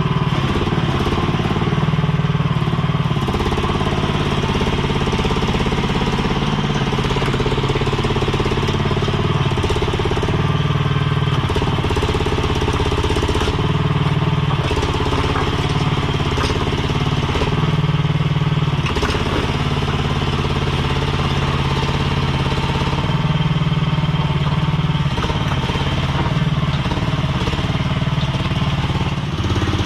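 Mini skid steer's engine running steadily under work. Its note shifts up and down several times as the machine drives and works its hydraulics.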